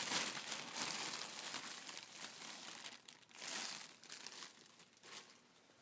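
A bag rustling as a hat is pulled out of it: irregular handling noise, strongest at the start and dying away, with a last short burst about three and a half seconds in.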